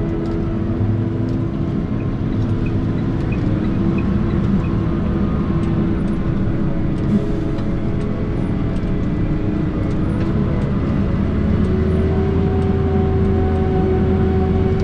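Case IH Optum 300 tractor's six-cylinder diesel heard from inside the cab, running steadily while the tractor drives at road speed. The engine note rises a little about eleven seconds in.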